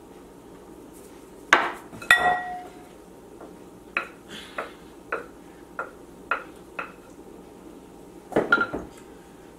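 Kitchen dishes and utensils clinking and knocking: two loud clinks about a second and a half in, the second one ringing, then a run of about six lighter taps, and a short clatter near the end.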